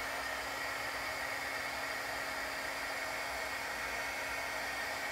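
Craft embossing heat gun blowing hot air steadily, an even whooshing whir with a faint steady hum, while it melts gold embossing powder.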